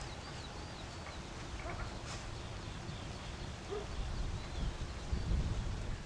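Quiet outdoor ambience: faint birds chirping in short falling notes, mostly in the first second or so and again midway, over a low rumble that grows louder about four seconds in.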